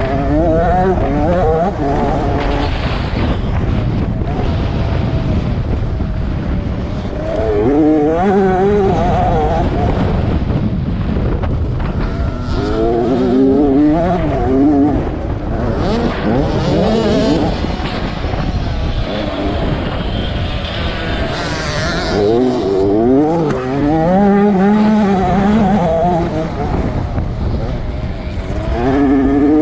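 Motocross bike engine revving hard, its pitch climbing and dropping back several times as the rider works the throttle and gears.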